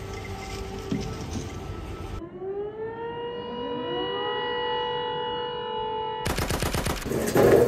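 Air-raid siren winding up. Its pitch rises and then holds steady for about four seconds before cutting off suddenly. It is followed by a quick run of rattling clicks.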